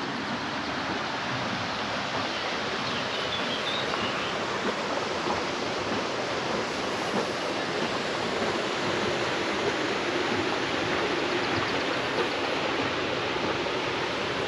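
Flowing river water rushing steadily at an old water mill.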